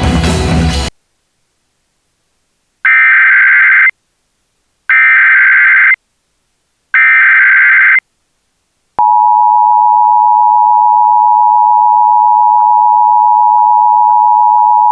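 Background music cuts off about a second in. After a pause come three one-second screeching data bursts of an Emergency Alert System SAME header, two seconds apart. At about nine seconds the steady two-tone EAS attention signal starts and holds, the alarm that comes before an emergency voice message.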